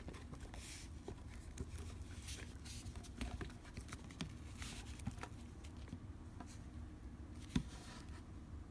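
Hands handling a shrink-wrapped trading card box: faint scattered taps, clicks and rustles of cardboard and plastic wrap, with one sharper click about seven and a half seconds in.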